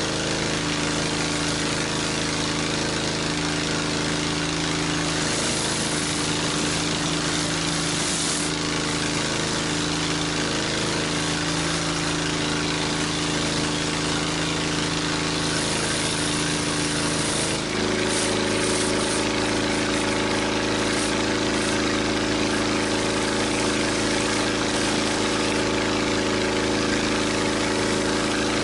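Gas pressure washer engine running steadily while a BE Whirl-a-Way 14-inch surface cleaner sprays the concrete with a steady hiss. The engine's note changes abruptly about 18 seconds in.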